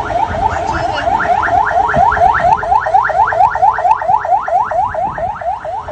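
Electronic motorcade siren wailing in a fast yelp, each note a quick rising sweep repeated about five or six times a second.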